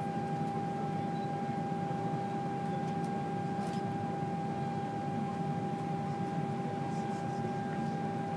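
Steady machine hum in an airliner cabin: an even low rumbling hiss with a constant high whining tone, unchanged throughout.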